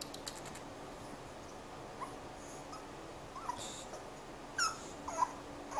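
English bulldog puppies giving short, high whimpering squeaks, a few scattered ones, with the loudest pair near the end.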